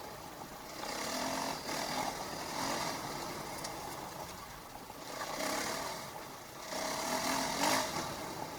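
KTM 500 EXC's single-cylinder four-stroke enduro engine running under way, swelling three times as the throttle is opened.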